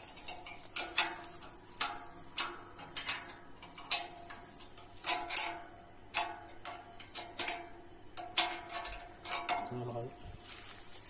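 Irregular sharp metallic clicks and taps, roughly two a second, as a battery cable's ring lug and a steel battery rack are handled.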